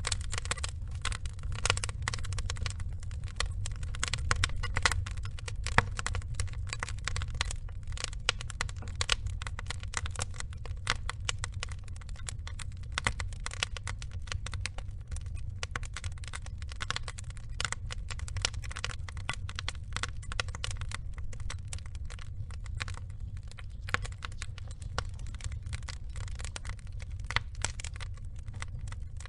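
Burning wood logs crackling and popping: many sharp, irregular pops over a steady low rumble of the flames.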